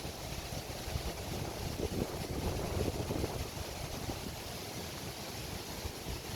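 Sea waves washing onto a beach, with gusty wind buffeting the microphone.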